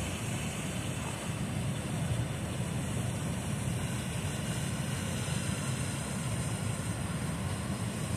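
Steady low rushing rumble of a fast-flowing river, mixed with wind on the microphone.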